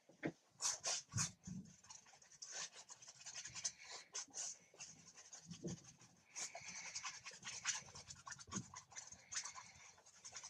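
Paintbrush scrubbing and dabbing acrylic paint onto a canvas: a run of irregular, dry scratching strokes.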